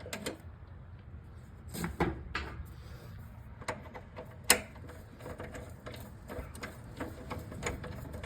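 A few scattered sharp metal clicks and knocks, the loudest about four and a half seconds in, as bump stop hardware and hand tools are handled on a car's rear axle, over a low steady rumble.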